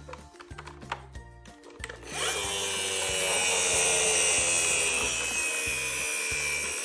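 Background music with a repeating bass pattern. About two seconds in, a loud, steady rasping, hissing noise starts and holds.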